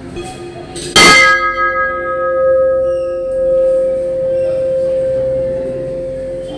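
Large brass temple bell rung once by hand about a second in, then ringing on for several seconds with one steady tone, its higher overtones dying away first.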